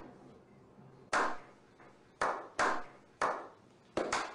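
A slow clap: single hand claps about a second apart, each with a short echo, coming closer together near the end as more people join in.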